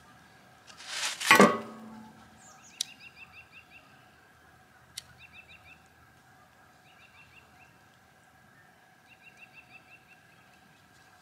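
A brief loud rush of noise about a second in, then a bird singing a short phrase of quick high notes, repeated four times, with two sharp clicks in between.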